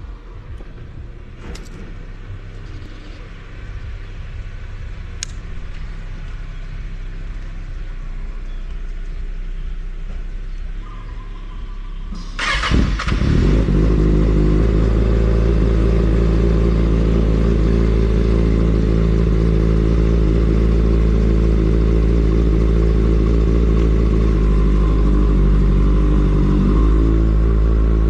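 Kawasaki sport motorcycle cold-started after standing for a month: after a low background rumble with a couple of clicks, the starter cranks briefly about twelve seconds in and the engine catches, then it runs at a loud, steady idle.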